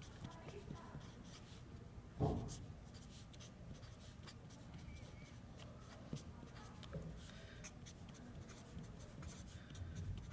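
Felt-tip marker writing on paper: faint scratchy strokes and small taps as equations are written out. A single soft thump about two seconds in.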